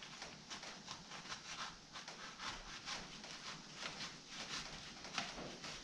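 Pocketknife blade cutting through cardboard packaging: a quick, irregular run of short scratchy slicing strokes, a few each second.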